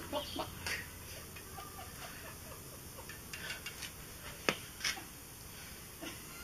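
Light clicks and crinkles of a disposable aluminium foil tray being handled and set down on a tabletop, with a sharper click about four and a half seconds in and another just after.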